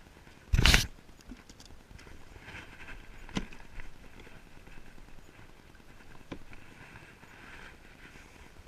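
Hollow knocks on a plastic kayak hull: one loud thump about half a second in, then two sharper single knocks, about three and a half and six seconds in.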